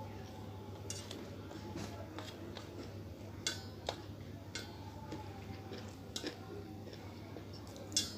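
Eating at a plate: scattered sharp clicks and taps, about seven in all, the loudest near the end, over a low steady hum.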